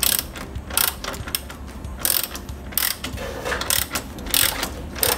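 Socket ratchet wrench tightening a nut: its pawl clicks in a short run on each back-swing of the handle, about once a second.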